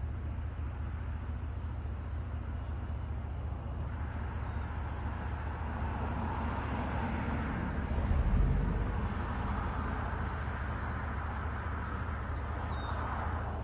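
A passing vehicle: road noise swells over several seconds, is loudest about eight seconds in, then fades, over a steady low rumble. A brief bird chirp comes near the end.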